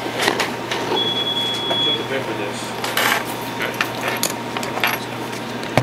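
Shop-counter clatter: scattered small clicks and clinks over a steady electrical hum, with one high beep lasting about a second, starting about a second in.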